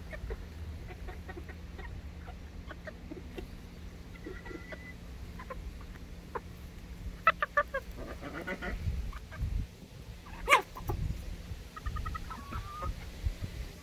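A flock of chickens close by, clucking softly now and then while pecking at feed on the ground, with many short pecking taps. A cluster of sharper taps comes about seven seconds in, and the loudest single tap about ten seconds in.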